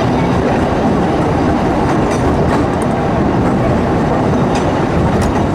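Small steam train running on its track: a steady, loud rumble with a few faint clicks from the wheels and rails.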